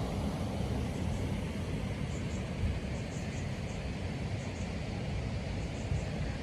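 Steady low rushing of water pouring through and below a dam, with a few faint, high paired chirps over it.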